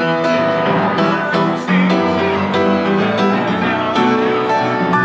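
Instrumental music led by piano, its notes struck in a steady rhythm.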